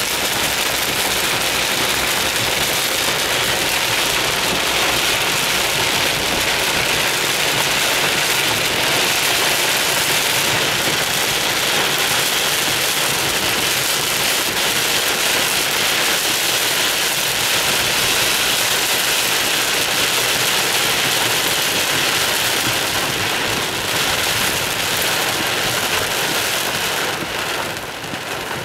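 Heavy rain hitting a car's roof and windshield, heard from inside the car: a loud, steady, dense hiss that eases slightly near the end.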